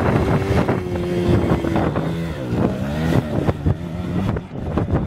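Trials motorcycle engine running steadily at the start line, then revving up and down a little after halfway as the bike pulls away up a rocky climb. Wind buffets the microphone.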